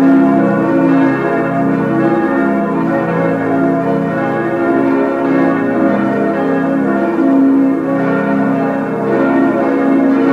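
Full peal of six bronze church bells, cast by Schilling in 1958 and tuned As°–B°–des'–f'–as'–b', all swinging and ringing together. The strikes overlap into one continuous sound.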